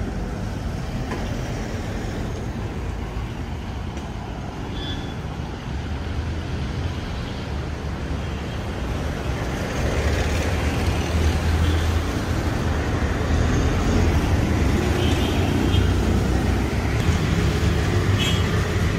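City street traffic noise: a steady wash of passing vehicles on the avenue, with a low engine rumble getting louder about halfway through.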